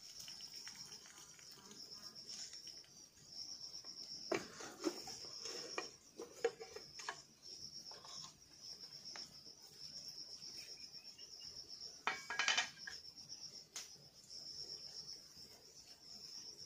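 Insects trilling steadily in a high, pulsing chorus. Over it, a metal cooking pot and its lid clank and clatter a few times as the lid is handled, loudest about twelve seconds in.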